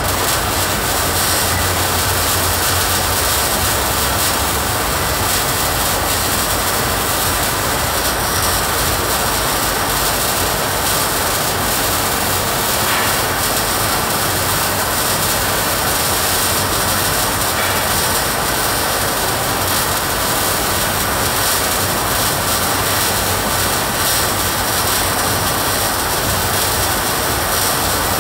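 Welding on a spigot: a loud, steady, even noise that runs without a break.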